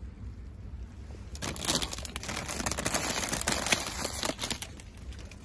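Crinkling and rustling close to the microphone, full of small crackles, starting about a second and a half in and lasting about three seconds.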